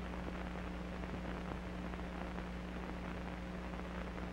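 Steady hiss and low hum of an old film soundtrack, with no other sound standing out.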